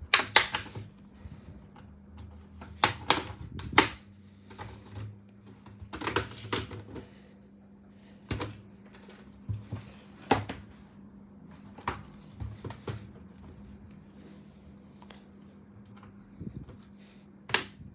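Plastic clips of an Asus X453M laptop's palm rest snapping loose as a guitar pick is pried along the seam between palm rest and bottom case: a string of sharp, irregularly spaced clicks and snaps, loudest in the first four seconds.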